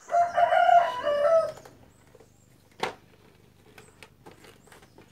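A rooster crowing once, a loud call of about a second and a half with a short break in the middle. A single knock follows about three seconds in.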